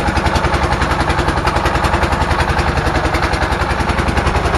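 Wooden fishing boat's inboard engine running steadily under way, a fast even putt-putt of about ten beats a second.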